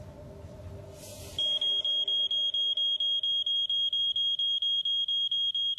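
Smoke alarm sounding: a shrill, high-pitched beep pulsing rapidly and evenly, starting about a second and a half in over a low room hum.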